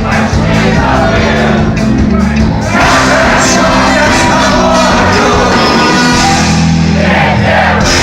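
Live rock band playing loud, with sung or shouted vocals and bass guitar, getting fuller about three seconds in.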